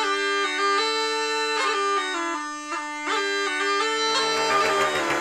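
Bagpipe music: a steady drone under a chanter melody that steps from note to note. The tune stops about four seconds in while the drone carries on.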